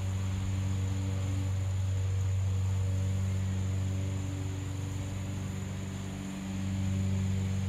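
Lawn mower engine running steadily, its level dipping about six seconds in and swelling back as it moves around the yard. A faint steady high whine sits above it.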